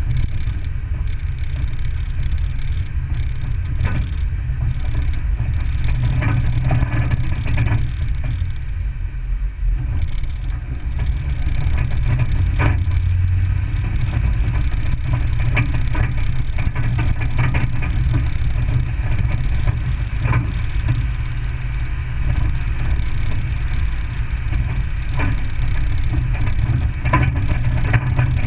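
Vehicle driving over a rough dirt and gravel road: a steady low engine and road rumble, with scattered knocks and rattles as it goes over bumps.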